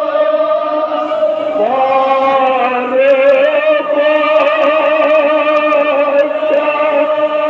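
A group of men chanting a Kashmiri marsiya, the Shia lament for Muharram, in long held notes with a rise in pitch about a second and a half in.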